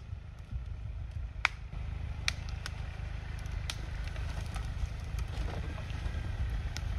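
Off-road 4x4 driving slowly through snow: a steady low engine rumble, with a few sharp cracks and clicks scattered through it.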